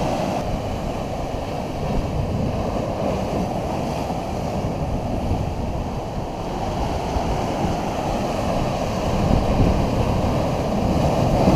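Ocean swell breaking over a rock ledge and rushing through a narrow gap into a tidal pool: a steady wash of surging, foaming water that swells a little louder near the end.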